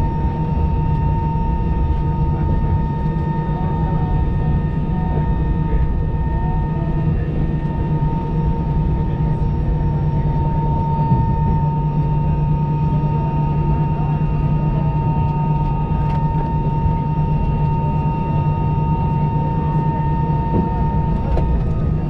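Steady cabin noise of an Airbus A319 taxiing, heard from inside over the wing: a low rumble of the engines at idle with a steady high tone running over it.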